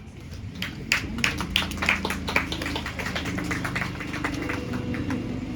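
Small congregation clapping, scattered claps that thin out after a few seconds, following the end of a prayer, with sustained music notes underneath.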